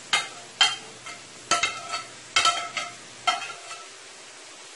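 Metal spoon knocking and scraping against a plate over a stainless steel pot, about half a dozen ringing taps in the first three and a half seconds, as diced tomatoes and scallions are knocked into onions frying in oil. A quiet steady sizzle from the hot oil runs underneath and is left alone near the end.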